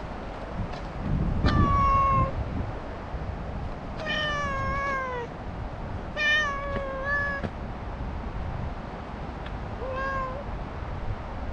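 A stray cat meowing over and over: about five drawn-out meows, one lasting over a second, the last one fainter.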